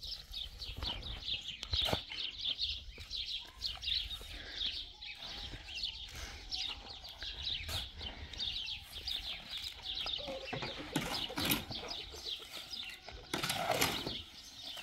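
Small birds chirping continuously in quick high notes, over the scrape and scuff of a shovel working sand and cement mix in a wheelbarrow, with a louder scraping spell near the end.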